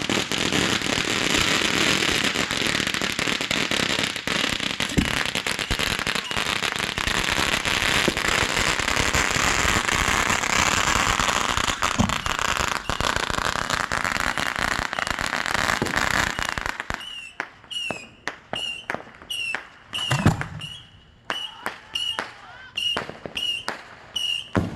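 Aerial fireworks going off in a dense barrage of crackling and bangs for about seventeen seconds, then cutting off abruptly. A regular series of short, sharp high-pitched blips follows, about one and a half a second, with one deep boom among them.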